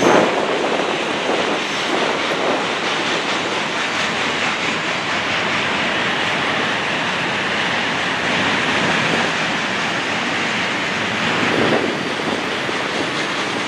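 Freight train cars rolling past: a steady rush of steel wheels on rail, with a louder swell at the start and another near the end.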